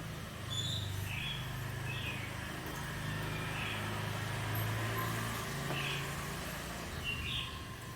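Low engine rumble of a motor vehicle, swelling about half a second in and easing off near the end, with short bird chirps repeating over it.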